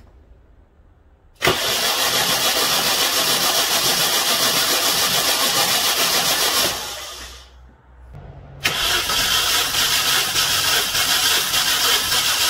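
Mini Cooper S R53's supercharged 1.6-litre four-cylinder being cranked over on its starter without firing, for a compression test. It cranks for about five seconds, stops, then cranks again for about four seconds with the gauge moved to the next cylinder. The engine is suspected to be blown, with a misfire on cylinder 4.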